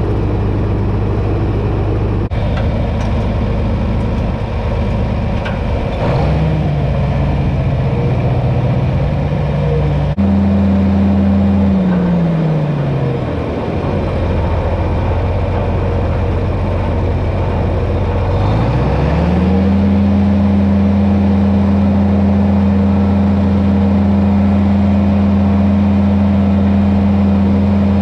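John Deere 4620 tractor's six-cylinder diesel engine running while driving. About ten seconds in its pitch falls as it slows, and a few seconds later it rises again and holds steady at a higher speed.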